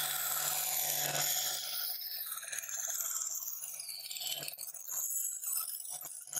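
Wood bandsaw running and cutting a curve in thin plywood, then backing the board out along the kerf with the blade still moving: a steady motor hum under a hissing cutting noise that thins out in the last second or two.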